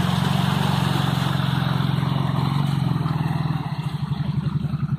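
Off-road vehicle engine running at steady revs, then dropping to a lower, unevenly pulsing note about three seconds in.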